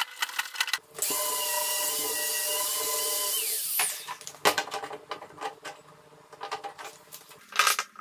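Power drill motor running steadily for about two and a half seconds, then winding down with a falling whine. Scattered knocks and clicks of tool and wood follow.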